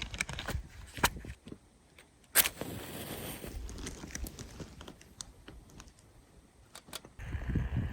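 Small clicks and taps of camp cookware and stove parts being handled, with a sharp knock about two and a half seconds in followed by a brief rush of noise.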